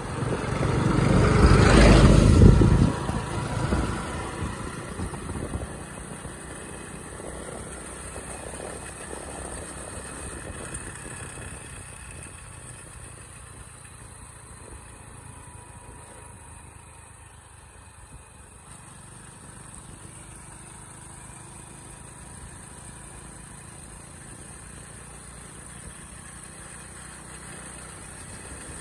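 Hero Splendor motorcycle's single-cylinder four-stroke engine running at a steady cruise, heard from the rider's seat with wind and road noise. A loud rushing surge in the first couple of seconds is the loudest thing and fades away by about five seconds in.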